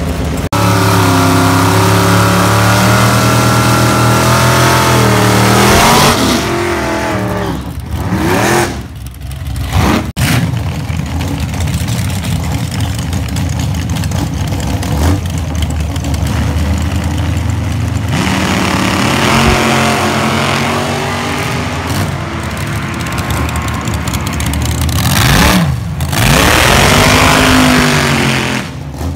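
Engines of old Chevrolet drag cars idling and being revved at the drag strip, the pitch climbing and falling with each rev. The sound breaks off sharply about a third of the way in, then a second car's engine runs and revs again, with a long rev near the end.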